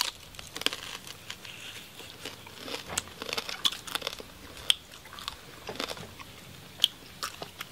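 Close-up crunching and chewing of crispy jar-roasted pork belly skin: irregular sharp crunches, a few a second, as the crackling is bitten and chewed.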